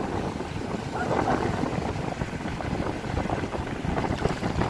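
Wind rumbling on the microphone over the sound of sea surf, with faint voices in the background.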